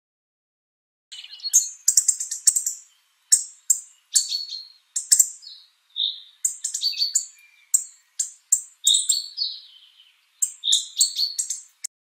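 Hawfinch song: clusters of short, sharp, high notes in quick succession, with a few brief whistled notes mixed in. It starts about a second in and comes in bursts separated by short gaps.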